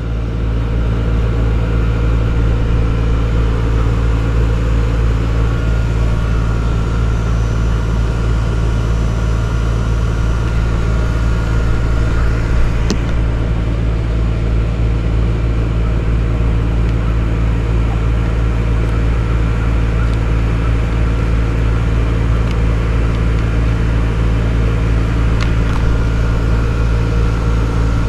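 Steady, loud electrical hum of running HVAC machinery, a deep drone with overtones that holds level throughout, with a faint click or two.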